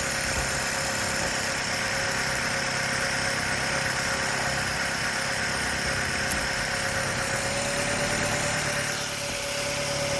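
2001 Saturn L-series engine idling steadily with the hood open, with a steady thin tone running over it that rises a little near the end. The engine is overheating and its radiator cooling fan is not running.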